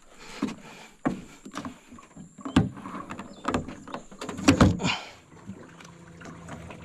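Several knocks and clanks against the aluminium jon boat as the bow-mounted electric trolling motor is handled, the loudest a little before five seconds in. About five and a half seconds in, a steady low hum begins, the electric trolling motor running.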